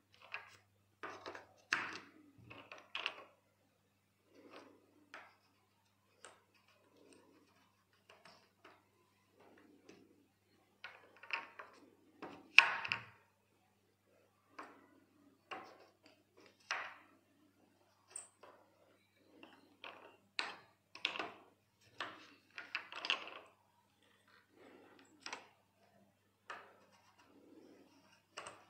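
Pegged chess pieces on a tactile chess board for blind players, lifted out of and pushed into the square holes as moves are made and felt for. The result is a long series of short wooden knocks and rubs, the loudest a little before halfway.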